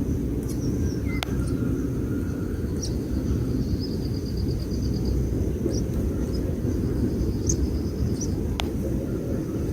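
A steady low outdoor rumble, with faint high chirps and short trills of small birds over it. Two sharp clicks, about a second in and near the end.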